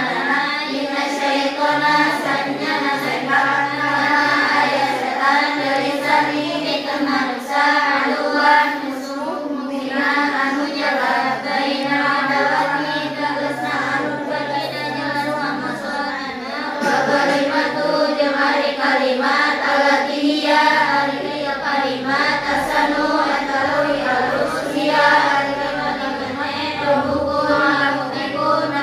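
A group of young women's voices reciting aloud together in a sing-song chant, many voices in unison, rising and falling in pitch without a break.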